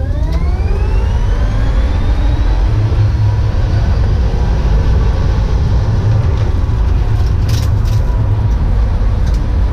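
Tesla Model S P100D's electric drive motors whining under a full-power launch, heard inside the gutted cabin. The whine climbs steeply in pitch over the first couple of seconds, then levels off as the car eases back, all over a heavy, steady road and tyre rumble.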